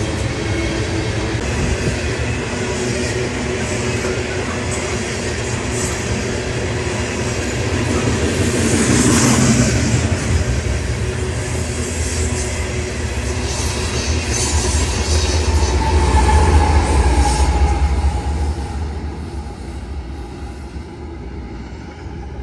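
Freight train of tank cars rolling past, a steady rush of wheels on rail with clacking and some wheel squeal. It swells louder, then a diesel locomotive at the rear of the train passes with a deep engine rumble, and the sound fades as the train pulls away.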